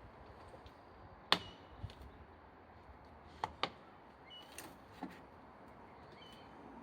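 Sharp clicks and knocks of plastic clips and trim as a car's lower grille is pried out of its bumper fittings, single ones spaced irregularly, with one loud snap about a second in and a quick pair near the middle.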